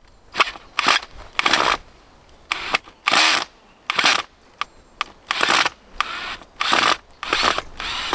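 Hand tool digging and scraping into soil at the base of a wooden gate post, in short strokes about two a second.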